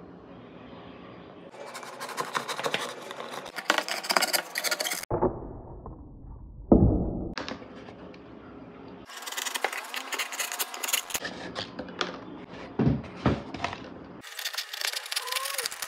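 Box cutter slicing through corrugated cardboard: a crackling, scraping rasp in several short stretches, with a thump about seven seconds in.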